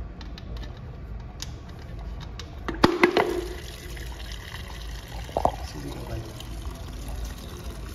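Dirty engine oil and turpentine flush pouring from a Yamaha R15's sump drain hole into a plastic measuring jug, a steady splashing stream. It starts after a few sharp clicks about three seconds in, as the drain bolt comes out.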